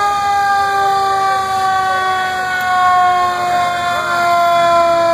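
Fire truck siren sounding one long wail, its pitch falling slowly and steadily after a quick wind-up just before.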